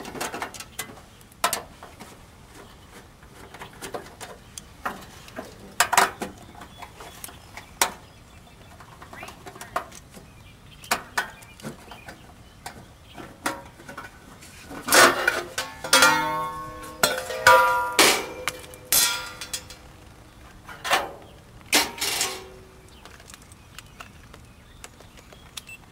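A screwdriver clicks and scrapes on the sheet-metal access panel of an outdoor AC condensing unit as its screws are backed out. About halfway through, the loose metal panel rattles and rings with several clanks as it is pulled free.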